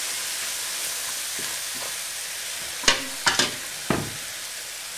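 Flour-and-oil roux with onions sizzling in a hot frying pan as broth is stirred in with a wooden spoon, the sizzle slowly dying down. A few sharp knocks of the spoon against the pan come about three and four seconds in.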